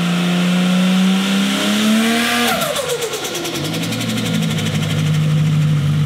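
Holden VL Commodore's turbocharged RB30 straight-six revs up, then the throttle snaps shut about two and a half seconds in. The turbo compressor surges with a rapid fluttering chatter ("dose") through a long 3-inch stainless dose pipe, lasting a couple of seconds as the revs fall back to idle.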